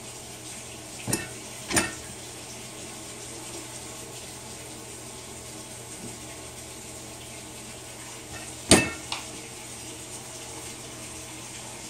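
Sharp metallic clinks of an aluminium plastisol injector and clamped aluminium lure molds knocking together as the injector is set on and moved between mold sprues: two clinks about a second in, then a louder one with a smaller second clink near the nine-second mark. A steady hiss underneath.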